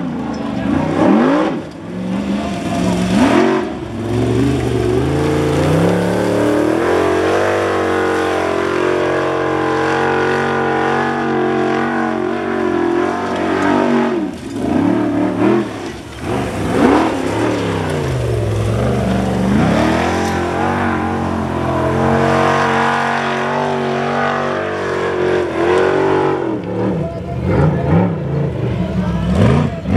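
Formula Offroad hill-climb buggy's engine at full throttle, the revs swinging sharply up and down as the spinning tyres claw up a steep sand slope. The revs drop and flare again several times.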